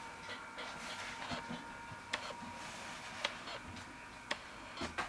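Shredded paper bedding rustling and crackling as a puppy walks and noses through it, with a few scattered sharp clicks, over a faint steady hum.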